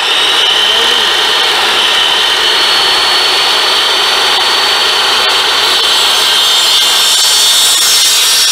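Miter saw motor running at full speed, a loud steady high-pitched whine, as its spinning blade is brought down toward a bamboo pole.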